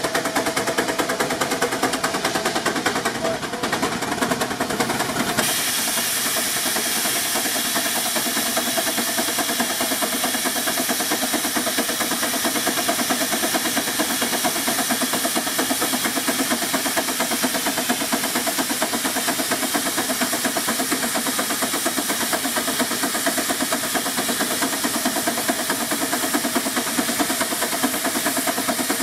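Advance steam traction engine working hard under load on a belted dynamometer: a fast, even beat of exhaust chuffs from the stack. About five seconds in, a steady hiss of escaping steam joins the chuffing.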